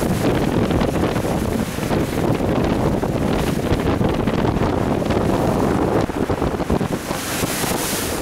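Wind buffeting the microphone aboard a boat on a choppy sea, with a continuous rumbling noise of the boat and water beneath it.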